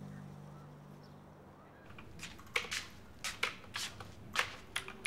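Background music fading out, then from about two seconds in, irregular clicking of typing on a computer keyboard.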